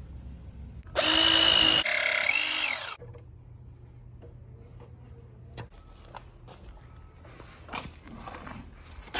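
Power drill running in a burst of about two seconds, its pitch shifting as it slows near the end of the burst, followed by faint clicks and knocks.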